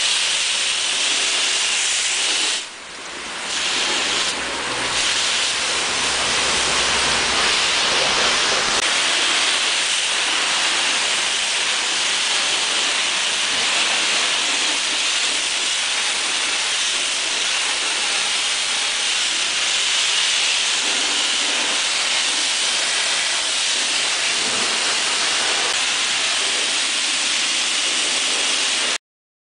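High-pressure washer wand spraying water onto a car's paintwork: a steady hiss, with a brief dip about three seconds in.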